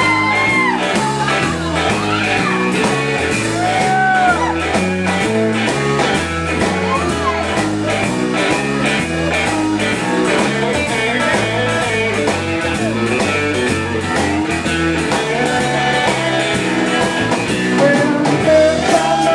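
Live blues-rock band playing: electric guitar with bent notes over a moving bass guitar line and a drum kit.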